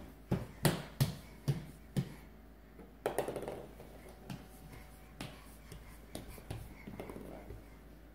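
A crawling baby's palms slapping a hard laminate floor: a run of sharp slaps about two a second, then scattered softer ones, with a longer scuffling burst about three seconds in.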